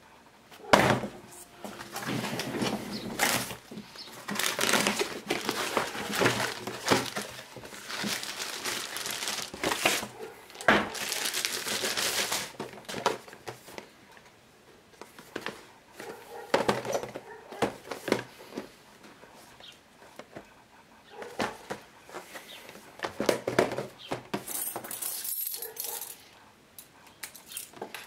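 Cardboard retail box of a computer mouse handled on a glass-topped desk: crinkling, rustling and scraping of the packaging, with a sharp knock about a second in and another near eleven seconds.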